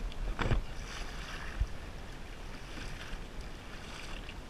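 Water sloshing against a kayak hull with wind on the microphone, with a few short knocks of fishing gear being handled in the kayak about half a second in.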